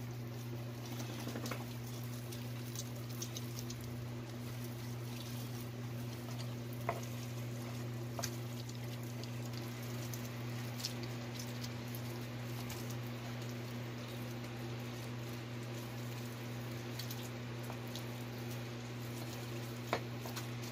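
Soft, wet patting and squishing of hands rubbing ground black pepper into a boiled pork leg on a wooden board, with a few sharp clicks, over a steady low hum.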